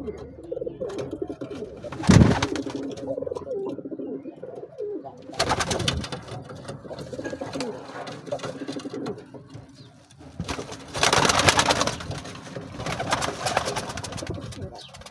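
Feather-footed domestic pigeons cooing steadily in a small wooden loft. Four short bursts of wing flapping break in as birds flutter between perches, the loudest about two seconds in and about eleven seconds in.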